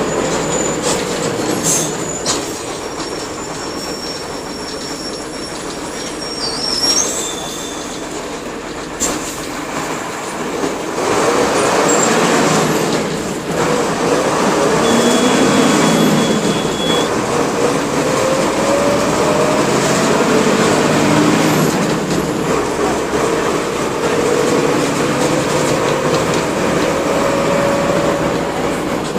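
Mercedes-Benz OF-1721 bus's OM-366LA turbo-diesel inline-six running under way, its pitch rising and falling. It eases off around nine seconds in and runs louder from about eleven seconds on, with a few brief high squeaks.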